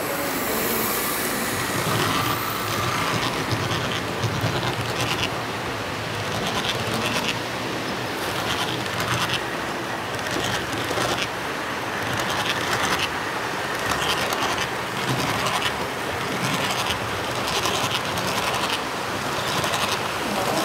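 HO scale model train rolling past: a steady rolling rumble and motor whir from the diesel locomotives, with many small clicks as the metal wheels of the cars pass over the rail joints.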